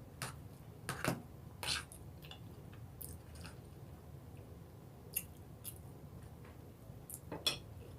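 A person chewing food with the mouth, giving soft wet smacks and clicks at irregular moments, about ten in all, with a few close together near the start and near the end.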